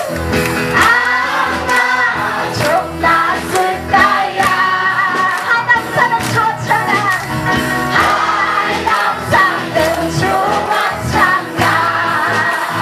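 A congregation of women and men singing a worship song together over instrumental backing with a steady beat, some clapping along.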